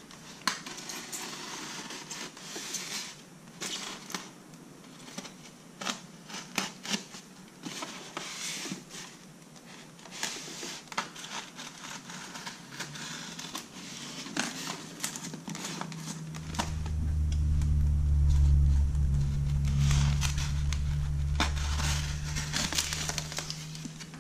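Packing tape being picked and peeled off a polystyrene foam box, a run of crackles, scratches and small clicks. About sixteen seconds in a steady low rumble sets in, the loudest sound here, and lasts about seven seconds.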